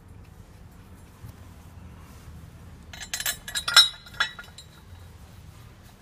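Metal bolts clinking against a metal bracket as they are started into their threads by hand. It is quiet at first, then a cluster of sharp clinks comes about three to four seconds in.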